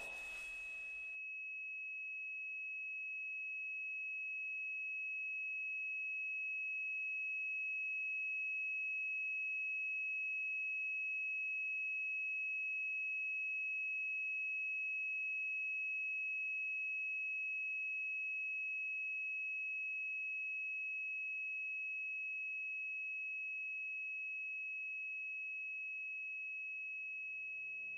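A loud rush of noise cuts off about a second in, leaving a steady high-pitched ringing tone with a fainter lower tone beneath it. The tone swells slowly and then fades again: a film's ear-ringing sound effect.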